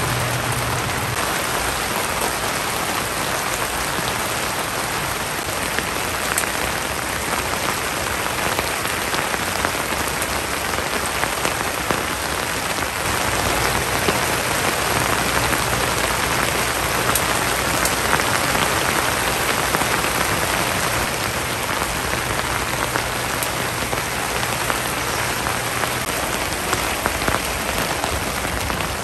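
Steady heavy rain pattering on a tent, heard from inside.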